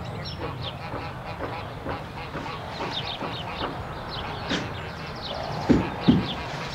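Outdoor ambience with small birds chirping in quick runs of short, falling notes. Two heavy thumps come close together near the end.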